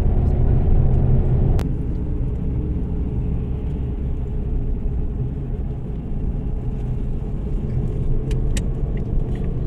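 Steady low rumble of a car driving, with a sharp click about a second and a half in, after which the rumble runs on slightly quieter.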